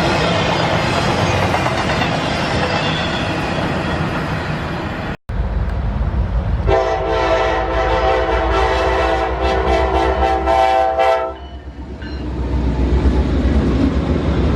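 Freight train rolling past with steady rail and wheel noise. After a sudden cut, a diesel locomotive's multi-chime air horn sounds one long blast of about five seconds over the low rumble of the locomotive's engine, and the rumble grows louder once the horn stops.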